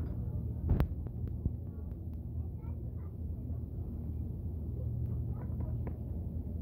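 Supermarket background: a steady low hum with faint voices in the distance, and a knock from handling the phone or goods about a second in.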